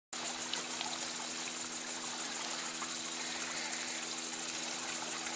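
Steady, shrill buzz of cicadas with a fast pulsing texture, over a low steady hum.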